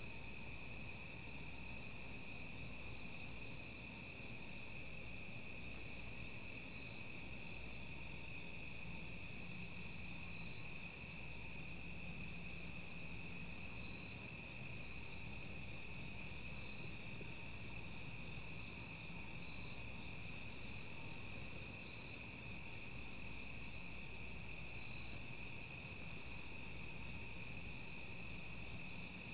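Night chorus of crickets: a steady high trill that drops out briefly every three to four seconds, over a lower trill that runs on without a break.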